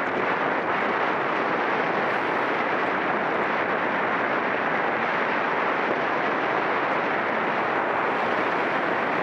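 Steady rush of wind on the microphone of a camera travelling on a racing bicycle at speed, with road and tyre noise mixed in.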